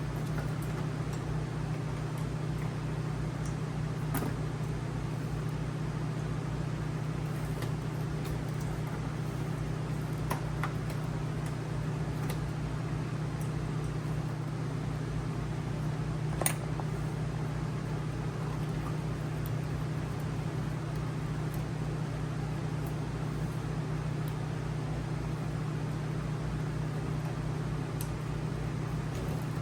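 Steady low mechanical hum, like a fan or appliance running, with a few faint small clicks and taps, the sharpest about sixteen seconds in.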